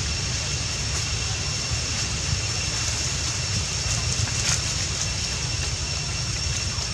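Outdoor ambience of a steady low wind rumble buffeting the microphone, with a thin, steady high-pitched whine held at two pitches above it.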